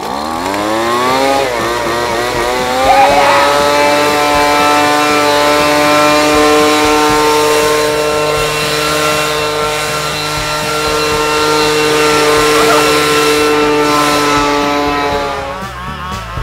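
Gas-powered handheld leaf blower revving up over the first few seconds, then running steadily at full throttle, its pitch dropping away near the end.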